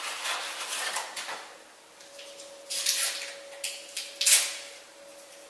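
Kitchen clatter as cookware and utensils are handled: rustling and clinking, then a few sharp knocks near the end, the last the loudest. A faint steady hum sets in about two seconds in.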